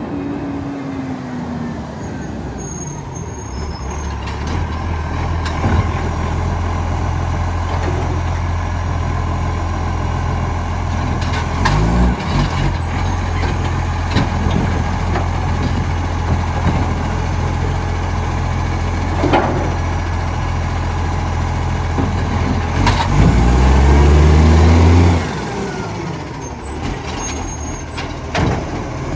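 Recycling garbage truck's diesel engine running, revving up briefly about twelve seconds in and again more loudly later on before dropping back suddenly, with scattered knocks and short air hisses. The truck has an exhaust leak.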